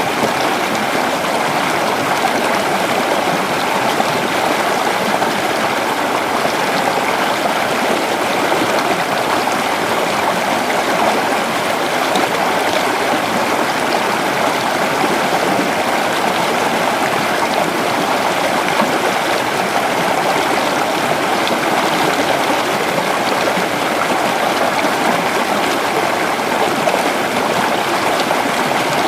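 Creek water flowing over rocks: a steady, unbroken rush and babble.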